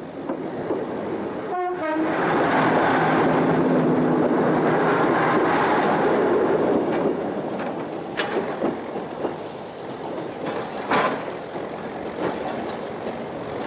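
Class 150/2 Sprinter diesel multiple unit gives a short horn blast about one and a half seconds in, then passes close with its underfloor diesel engine and wheels running loud before fading as it draws away. A few sharp clicks follow later on.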